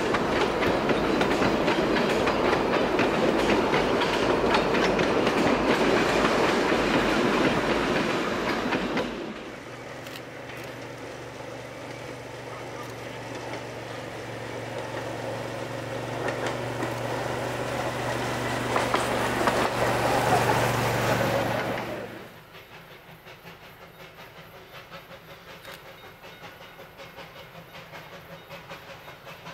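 Carriages of the Puffing Billy narrow-gauge train rolling past close by, wheels clacking over the rail joints. About nine seconds in the carriages have gone by and the sound drops to a quieter steady low hum. About 22 seconds in it cuts off to a much quieter outdoor background.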